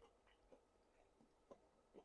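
Faint chewing, soft mouth clicks about twice a second.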